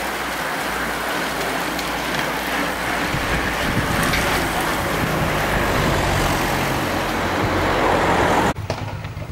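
A bunch of road racing bicycles passing close by with a steady hiss of tyres and drivetrains, then the engine of a Citroën Berlingo van running as it follows slowly past. The sound cuts off abruptly near the end.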